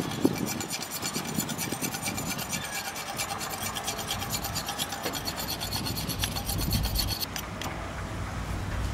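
Large kitchen knife scraping along a fresh green plant stalk in quick, even strokes, a dry rasping that stops about seven seconds in. A low rumble rises near the end.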